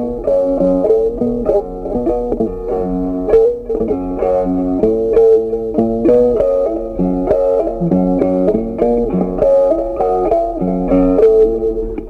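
Background music: a plucked-string, guitar-like melody over lower bass notes, with the notes changing several times a second.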